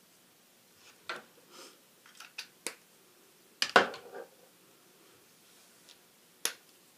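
Spectrum Noir alcohol markers being handled and swapped, giving a scattering of sharp plastic clicks and clacks. The loudest is a quick double clack about halfway through, with one more click near the end.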